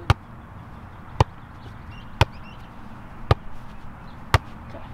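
Volleyball struck on forearm passes (bumps), five sharp hits about a second apart as the ball is passed up again and again.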